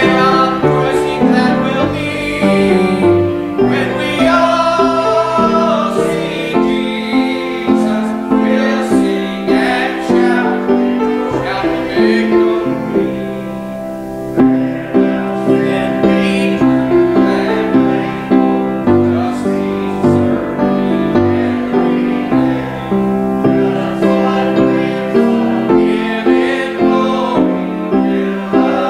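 Grand piano playing a slow gospel song, with notes struck and left to ring, and a woman singing over it with vibrato in places.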